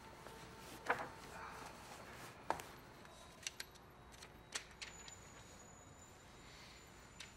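A handful of small, sharp clicks and taps over quiet office room tone, the loudest about one and two and a half seconds in: someone settling at a desk and handling a card.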